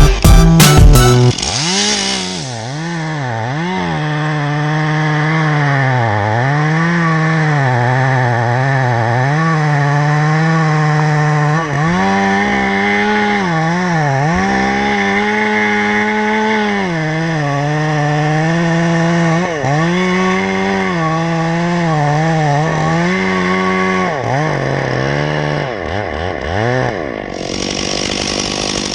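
Two-stroke chainsaw cutting wood. Its engine note repeatedly sags and recovers as the chain bogs in the cut and is eased, with a change in the sound near the end.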